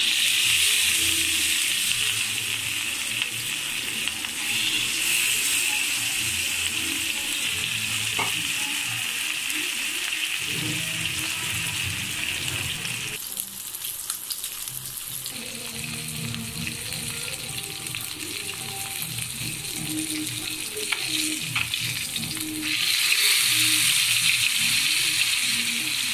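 Fish slices sizzling as they shallow-fry in oil on an iron tawa, a steady hiss. The sizzle eases a little about halfway through and grows louder again near the end.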